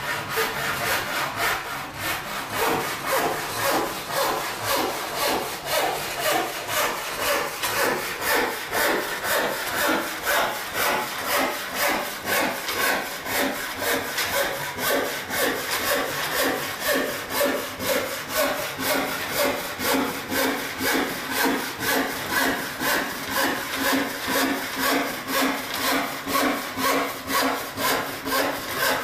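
Hand rip saw, a 5½-point rip saw, ripping a rough 1-inch white pine board along the grain: a steady run of rasping strokes, a little over one a second.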